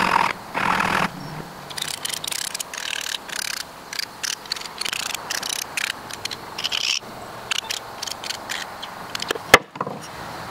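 Steel being scraped and rubbed in short, uneven strokes, with a single sharp metallic click about nine and a half seconds in.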